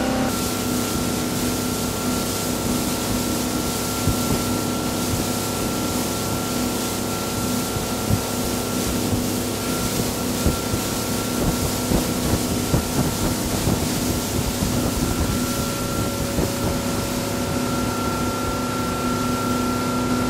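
Motorboat engine running steadily at speed, with the rush of the wake and spray behind it. A scatter of short thumps comes in the middle.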